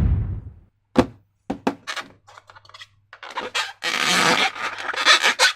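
Slime being worked by hand: a few separate sticky clicks and snaps, then from about three seconds in a dense run of wet crackling and popping.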